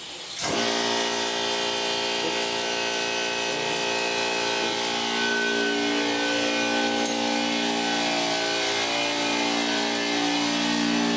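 Electric air compressor kicking on about half a second in and running steadily, its motor and pump building tank pressure.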